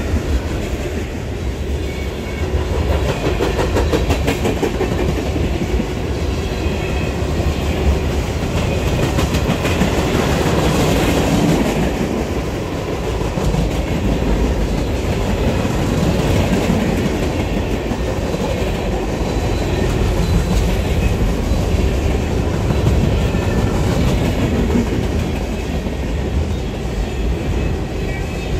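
A train rolling past, its wheels clicking steadily over the rail joints with a heavy low rumble, the sound holding at an even level throughout.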